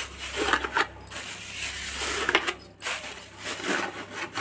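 Thin plastic carry bags rustling and crinkling as they are pushed by hand into a cut-open plastic bottle, in irregular crackles.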